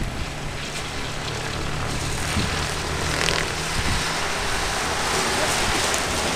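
A flatbed truck's diesel engine running steadily as it drives past on the road, over rushing wind noise on the microphone.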